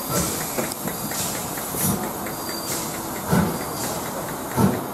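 Stanier Black Five steam locomotive 45231 moving off slowly along the platform: steam hissing, with three slow exhaust chuffs well over a second apart.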